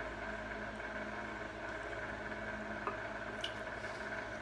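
Steady electrical-appliance hum filling the room, with soft sounds of a fork and spoon working pasta on a ceramic plate and two faint utensil clicks near the end.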